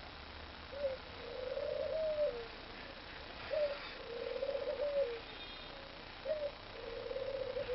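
Dove cooing: a low call repeated three times, each a short note followed by a longer rolling coo that falls away at the end.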